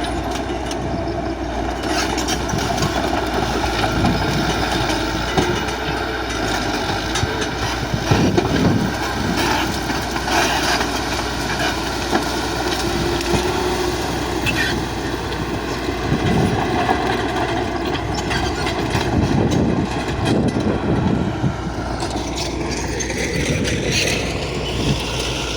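Bulldozer's diesel engine running steadily under load, with metallic clanks from the tracks and blade. The engine's pitch rises near the end.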